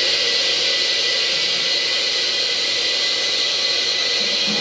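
Loud, steady hiss of rushing air from the debris-impact test rig, with no impact heard.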